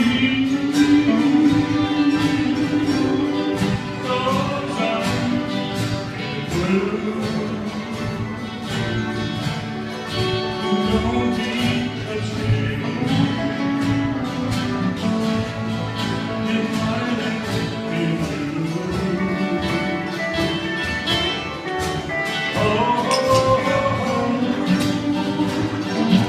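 Live jam-session music led by guitar, played without a break.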